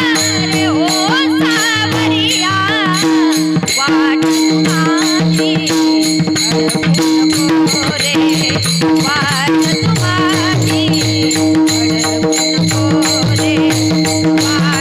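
Varkari kirtan music: a woman sings an ornamented melody over a steady drone, with pakhawaj drum strokes and small hand cymbals keeping the beat.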